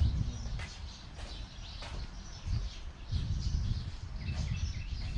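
Birds chirping outdoors, with a few sharp knocks and a rough low rumble underneath.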